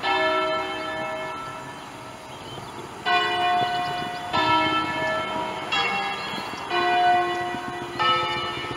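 Swinging church bells from a five-bell peal cast by Pruneri in 1887, hung on large wheels, striking one after another. One strike opens, then after a pause of about three seconds come five more, roughly one a second. Each strike is a different bell and rings on.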